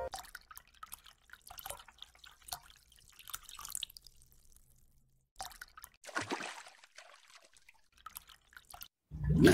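Cartoon sound effects of water dripping in a fishbowl: scattered single drops, with a louder falling plop about six seconds in and a louder rush of water starting just before the end.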